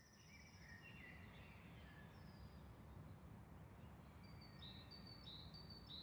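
Faint songs of several forest birds over a low, steady background rumble. In the second half one bird repeats a short, slightly falling note about three times every two seconds.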